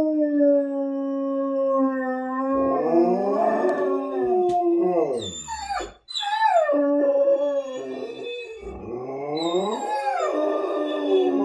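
Two dogs howling together in response to tornado sirens: long howls that hold steady and then waver up and down, overlapping each other. They break off briefly about halfway through and start again.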